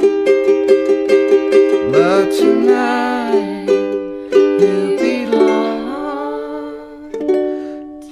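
Ukulele strummed in a quick, even rhythm, with a voice singing a few wordless, gliding notes over it twice. Near the end the strumming thins out to a few last chords.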